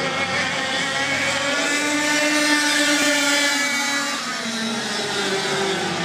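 Several 125cc two-stroke kart engines running at full throttle as the karts race past. The pitch climbs over the first few seconds and then drops as they pull away.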